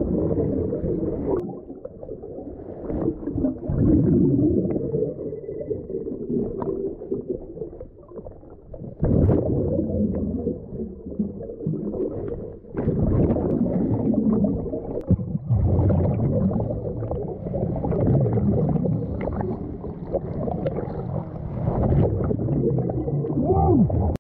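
Muffled underwater rumbling and gurgling of water moving around a submerged camera, rising and falling in uneven surges with a few brief dips.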